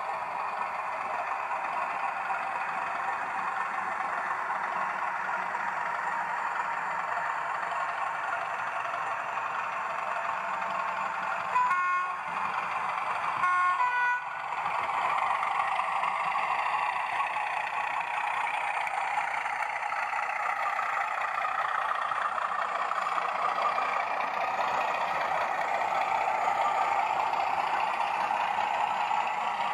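Hornby TTS sound decoder in a model Class 31 diesel locomotive playing its diesel engine sound through the model's speaker as the locomotive runs. A little before halfway it sounds two short horn blasts, one after the other.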